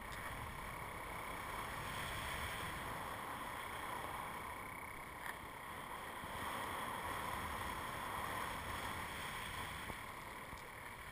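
Airflow rushing over a paraglider pilot's harness-mounted camera in flight: a steady wind noise that swells and eases a few times, with a faint click about five seconds in.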